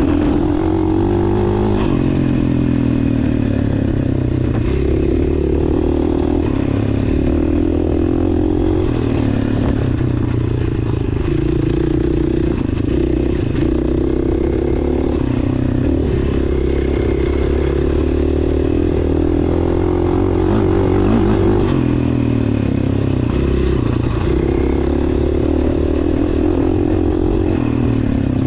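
GasGas dirt bike's engine running hard on a grass trail, its pitch rising and falling as the throttle opens and closes. There is a dip in revs about two seconds in and another around twenty-two seconds in.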